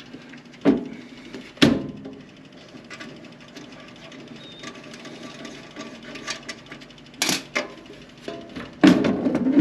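Pliers clicking and knocking against the push-to-start switch's holding nut as it is turned loose, a few separate sharp clicks over a steady low hum.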